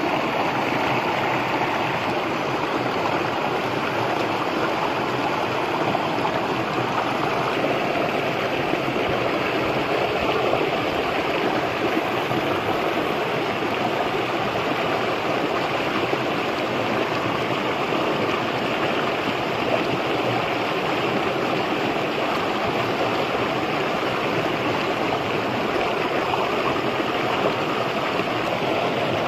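A rocky stream rushing steadily over stones and small cascades.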